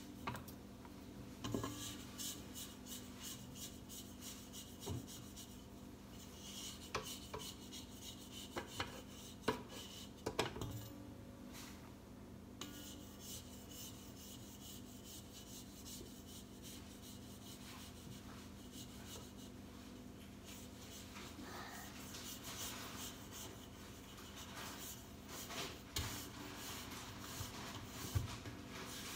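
Faint scraping of a spatula against a stainless steel stand mixer bowl and beater, with scattered light knocks of the utensil on the metal, as chocolate brownie batter is worked off the beater and sides.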